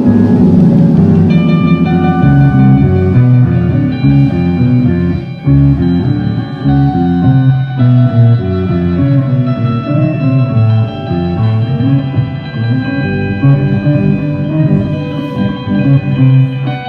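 A band playing music live, with a moving bass line under sustained higher notes.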